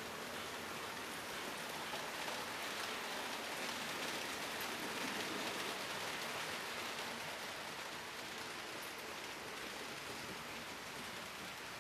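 HO-scale model trains running on the layout's track: a steady rushing rattle of wheels on rails that swells a little around the middle as a train passes closer.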